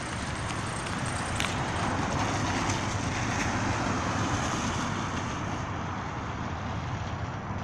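A car driving past close by, its noise building up, peaking about halfway through and then fading away.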